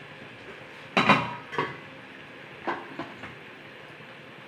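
Stainless steel kitchenware being handled and set down: a steel spice box and its cups knocking and clinking, four separate metal knocks with the loudest about a second in, ringing briefly.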